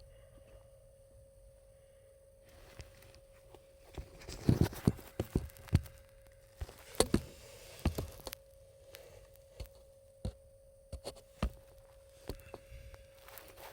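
A string of irregular clicks and knocks, like plastic and metal parts and tools being handled, densest in the middle, over a faint steady tone.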